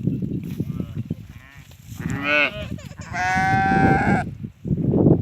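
Goat bleating twice: a short bleat about two seconds in, then a longer, held bleat lasting about a second. A low rumbling noise sits under the start and the end.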